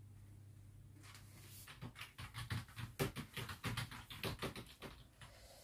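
Typing on a computer keyboard: a fast, irregular run of key clicks that starts about two seconds in and stops near the end.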